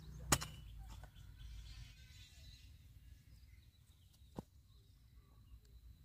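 A single sharp knock of a long digging bar driven into the soil, about a third of a second in. Then faint open-air quiet with a few small ticks and chirps and a second, smaller click near the two-thirds mark.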